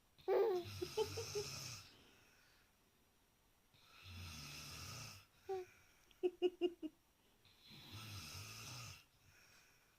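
Snoring: three long snores, each lasting a second or so and coming about four seconds apart, with a deep rumble under a breathy hiss. Between the second and third snore there is a quick run of short high-pitched sounds.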